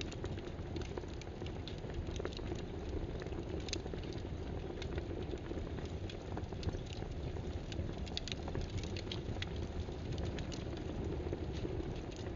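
Keyboard typing: irregular light key clicks, coming in short bursts, over a steady low background hum.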